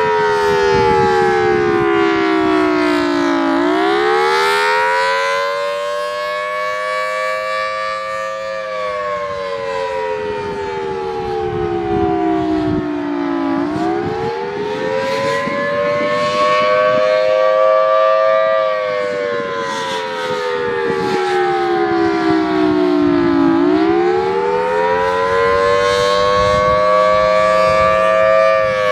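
Federal Signal Thunderbolt civil defense siren sounding a wail. Its pitch rises slowly over about five seconds, then falls over about five, repeating about every ten seconds without winding down.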